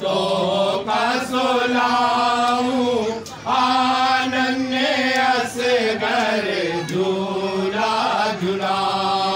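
Male voices singing a slow devotional kalam, a lament sung as a lullaby for the infant Asghar, drawing each syllable out into long held notes that rise and fall. The singing breaks briefly for breath a little after three seconds in and again near seven seconds.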